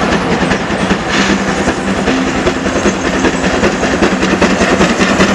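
Battery-powered toy Thomas the Tank Engine train running, its small motor and gears making a fast, steady rattle with a faint hum.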